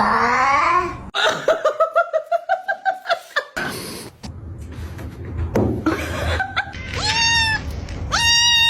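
High-pitched laughter in quick, rapid bursts, about six a second, for the first few seconds. Near the end come two drawn-out high-pitched cries, each dipping slightly in pitch as it ends.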